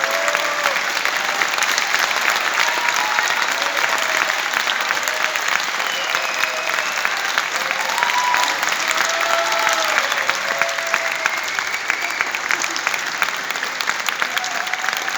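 Audience applauding steadily, with short shouts from a few voices rising above the clapping now and then.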